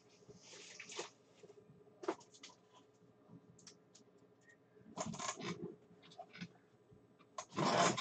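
Faint scattered clicks and scrapes of objects handled on a desk, with a short rustle about five seconds in and a louder one near the end.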